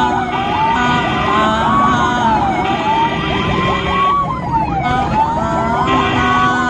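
Ambulance siren wailing, its pitch sliding slowly up and down every couple of seconds, over engine and traffic noise.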